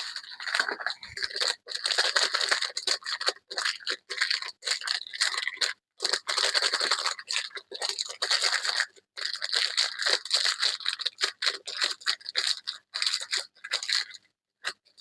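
Hands crinkling and tearing packaging, foil or plastic wrapper, in long runs of dense rapid crackling with short pauses.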